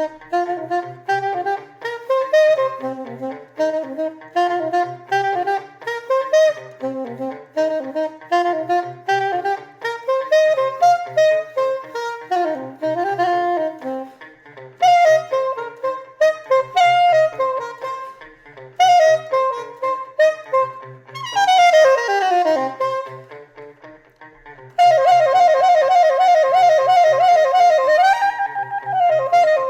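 Saxophone improvising on the D blues scale over a funk backing groove, playing many short, crisply tongued notes. About two-thirds of the way through comes a quick downward run, then a loud stretch of fast repeated notes near the end.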